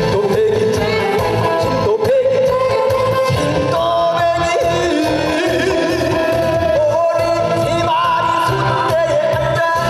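A man singing into a microphone over accompanying music with a steady beat, amplified through a stage sound system.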